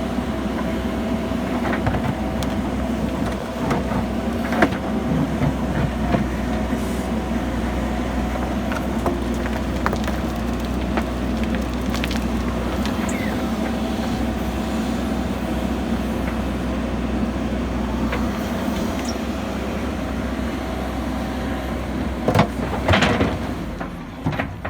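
JCB backhoe loader's diesel engine running steadily under load, with scattered sharp knocks and clatters from the working machine; the loudest are two close together near the end.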